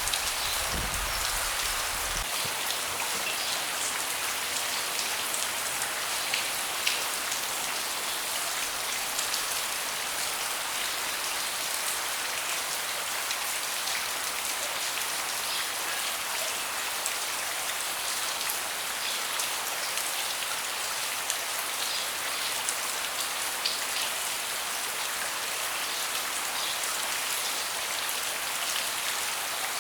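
Steady rain falling on a deck, an even patter with individual drops ticking here and there.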